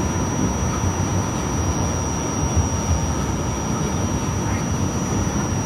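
Steady rumble of a Breda light rail car running along the line, heard from inside the car, with a constant thin high whine over it.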